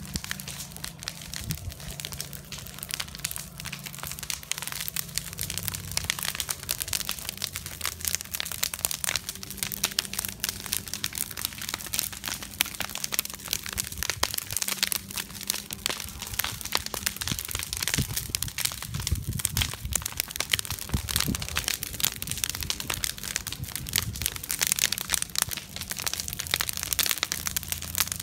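Open wood fire of scrap boards and planks burning, with dense irregular crackling and popping that grows thicker in the last few seconds.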